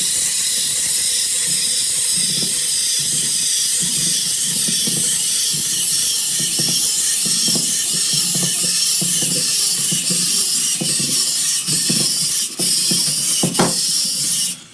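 A steady, loud hiss with soft low thumps scattered under it, cutting off suddenly at the end.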